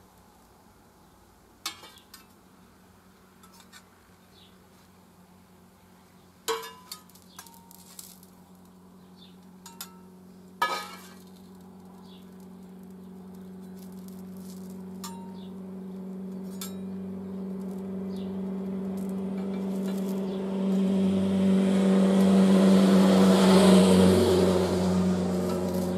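Steel spatulas clinking and scraping against a steel hot plate, a few sharp clinks in the first half. From about halfway a low steady droning tone swells in, loudest near the end.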